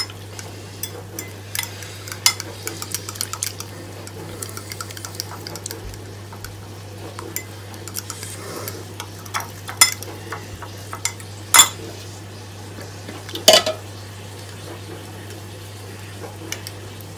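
Metal fork whisking a flour-and-water slurry in a glass bowl to beat out the lumps, the tines clinking and scraping against the glass. There are a few sharper, louder clinks about ten, eleven and a half and thirteen and a half seconds in, over a steady low hum.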